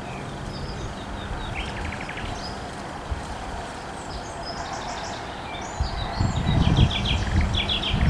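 Small birds chirping in quick trilled runs, once about two seconds in and again near the end, over steady outdoor background noise. A low rumble swells about six seconds in.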